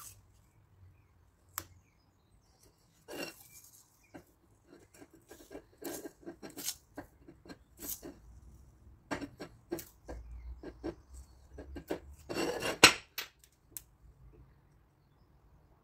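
Metal pieces being handled, clinking and clattering against each other and a hard surface in scattered knocks, with the loudest clank about thirteen seconds in.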